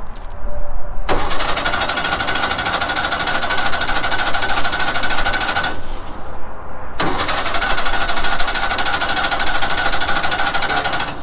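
A 1966 Volkswagen air-cooled flat-four engine being turned over on its starter in two long cranking runs of about four and a half seconds each, with a short pause between. It spins over fast with a whirring 'wing', the sign of very little compression.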